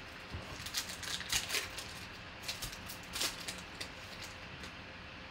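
A trading-card pack's foil wrapper crinkling and tearing as it is pulled open by hand. It comes in short rustling bursts, loudest about a second in and again about three seconds in.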